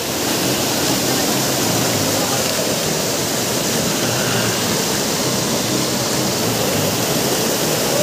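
Small waterfall: water spilling over a rock ledge and churning into a pool below, a steady rush of falling water.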